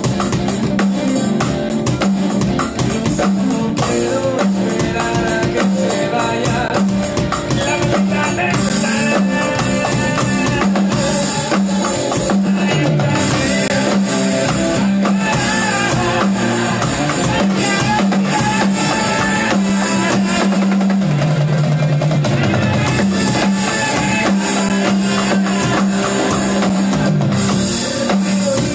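Alternative rock music with a full drum kit, bass and electric guitar, the drums played on an electronic drum kit along with the recorded song; loud and steady.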